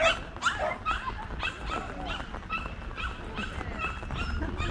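A dog barking in a rapid, steady run of high, sharp barks, about two to three a second.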